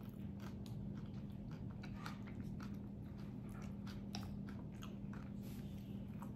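A person chewing a mouthful of taquito and rice: a run of small, irregular wet clicks and crunches, over a steady low hum.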